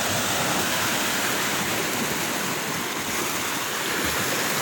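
Small waves washing in and swirling over shoreline rocks: a steady rush of surf.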